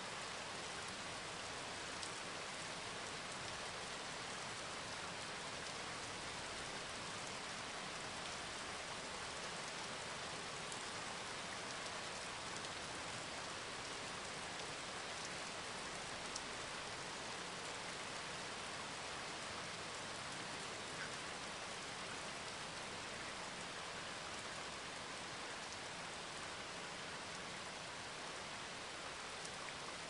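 Steady rain falling: an even hiss with scattered faint ticks of single drops.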